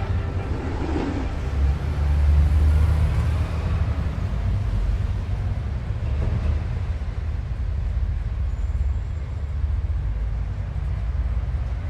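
A low, steady rumble, a little louder about two to three seconds in.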